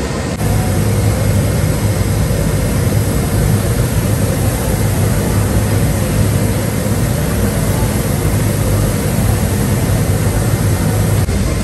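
Large drum coffee roaster running: a loud, steady noise of fans and motors with a constant low hum, while freshly roasted beans are stirred in its cooling tray.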